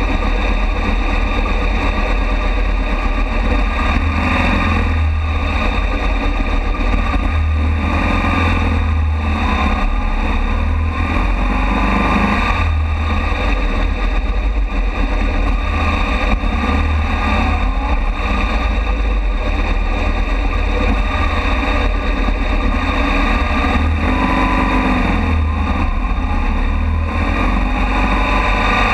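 Motorcycle V-twin engine running at low speed with a heavy low rumble and wind buffeting on a bike-mounted microphone. The engine note swells and dips every few seconds with the throttle.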